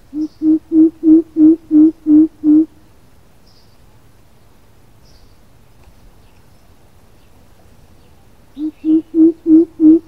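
Greater coucal calling: two runs of deep, evenly spaced hoots, about three a second. Eight hoots come in the first couple of seconds, swelling after the first, and a second run starts near the end.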